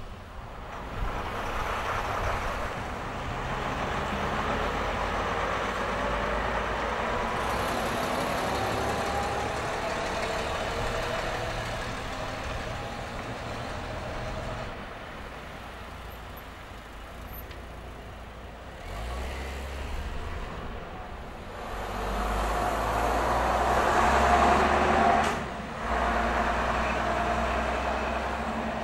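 Buses and cars driving past on a street, their engines running as they go by. One engine note climbs in pitch several seconds in, and the loudest pass comes about three quarters of the way through, dropping away suddenly for a moment just after.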